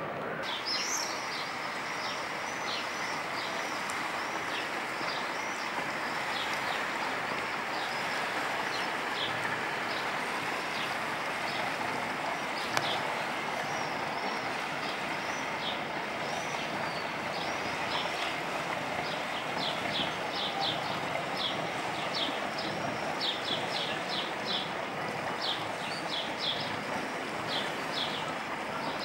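Small birds chirping over and over, short high calls that come thicker and faster in the second half, over a steady outdoor background noise. One sharp click about 13 seconds in.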